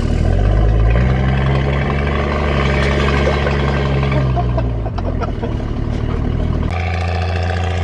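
Car engine running while driving, its pitch climbing in steps as it picks up speed, holding, then dropping back and settling into a steady drone near the end.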